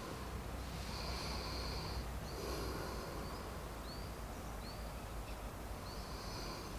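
Faint birds calling in woodland: a handful of short, high chirps and a few held whistled notes over a quiet, steady background hush.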